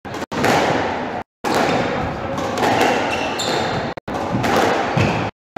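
A squash rally: the ball struck by rackets and hitting the court walls, and shoes squeaking on the wooden floor, over a steady background noise of the hall.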